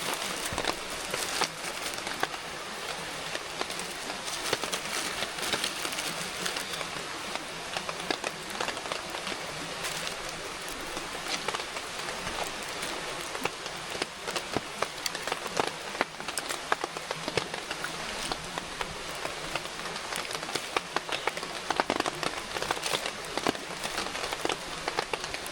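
Steady rain falling, with many individual drops ticking sharply through an even hiss.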